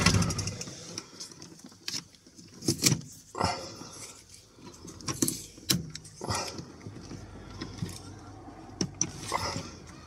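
Scattered light clicks, taps and rustles of hands handling a taped bundle of electrical wires inside a plastic junction box.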